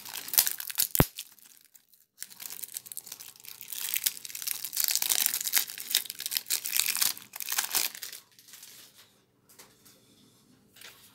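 Plastic shrink wrap being torn and peeled off a deck of Magic: The Gathering cards, crinkling. A sharp click comes about a second in. The crinkling runs thick from about two seconds in and dies down near eight seconds.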